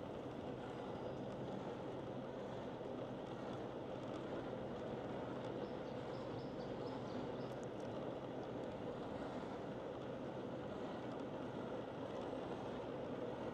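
Steady low engine hum and tyre noise of a car driving slowly, heard from inside the cabin.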